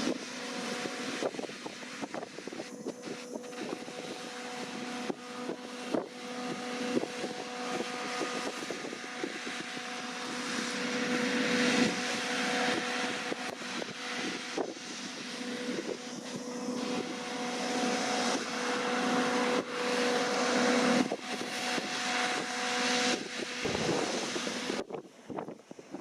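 Deutz-Fahr C9306TS combine harvester running while harvesting: a steady mechanical hum with a rushing, crackling noise over it. The hum stops near the end and the sound drops away.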